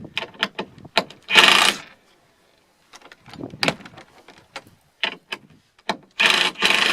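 Power drill driving screws into a wooden door in two short runs, one about a second and a half in and one near the end, with clicks and knocks of tool handling between.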